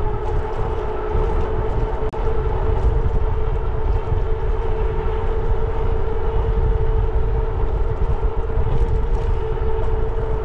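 Wind rumbling on the microphone of a moving e-bike, with a steady whine from the electric hub motor of a Jasion EB7 2.0 folding e-bike under power at constant speed.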